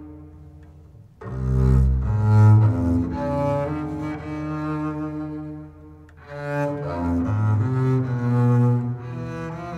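Solo bowed-string instrument playing slow, sustained low notes, with the long echo of a stone church. A phrase dies away in the echo at first, the playing comes back strongly just after a second in, and there is a short lull a little past halfway.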